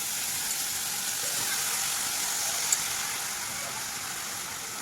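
Javla (small dried shrimp) cooking in a hot pan with a steady sizzle that eases a little toward the end.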